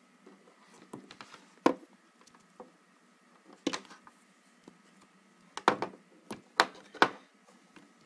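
Scattered sharp clicks and knocks as a power plug and its cable are handled on a wooden table, the loudest about two seconds in and a cluster of them near the end.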